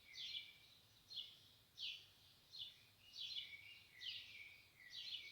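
Faint bird chirping: a short falling chirp repeated steadily, one or two a second.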